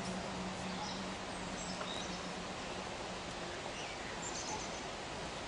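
Steady outdoor background noise with a faint low hum that stops about three and a half seconds in. A few faint bird chirps come about four seconds in.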